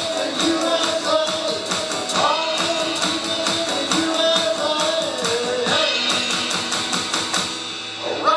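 Live rock music from a guitar-and-drums duo: electric guitar over an electric drum kit keeping a steady beat. The drums drop out briefly near the end.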